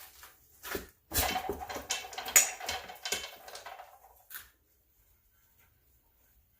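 Rustling, scraping and light clicks of things being handled for about three seconds, then quiet.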